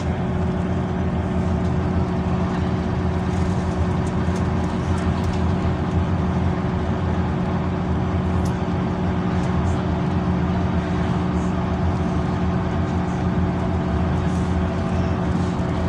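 Scania Citywide LE 12-metre low-entry city bus on the move, heard from inside the passenger cabin: a steady engine and drivetrain drone with constant low hum tones under road and tyre noise.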